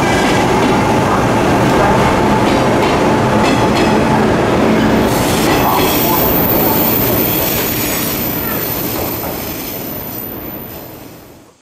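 JR Nara Line 103 series electric train running past along the platform, its motors and wheels loud, with wheel clicks over the rail joints. The noise fades away over the last few seconds as the final car pulls clear.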